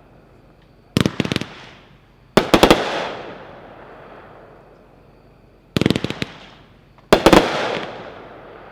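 Heavyweight 'Majestic Geyser' consumer firework cake firing: four volleys of several rapid sharp bangs each, about a second in, at two and a half seconds, near six seconds and a little past seven, each trailing off in a fading hiss.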